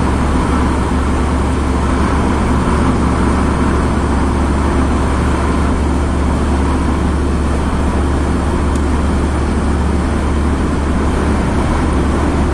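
Steady road noise inside a car driving at highway speed: a constant low rumble of engine and tyres with an even hiss above it.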